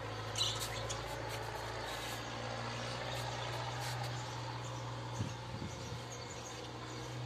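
A steady low mechanical hum of a motor running, unchanging throughout, with a brief faint crackle about half a second in.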